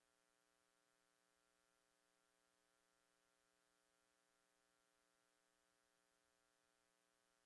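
Near silence, with a faint steady electrical hum and hiss.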